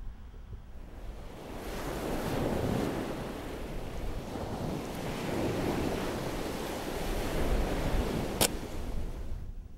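A wash of wind and surf noise that builds after about a second and a half, swells and eases, with a low rumble of wind on the microphone. A single sharp click stands out near the end.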